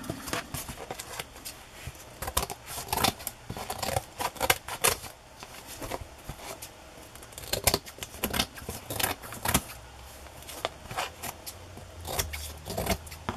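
Scissors snipping loose cloth off the edge of an old clothbound book cover, mixed with the rustle and knock of the cover being handled: irregular clicks and short scrapes.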